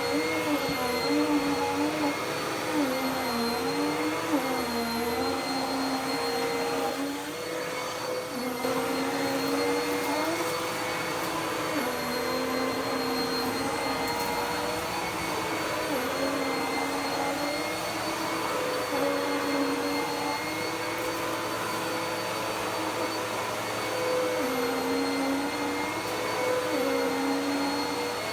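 Dirt Devil PowerMax Pet upright vacuum cleaner running on carpet: a steady motor whine whose pitch dips and rises every couple of seconds as the load on the motor changes.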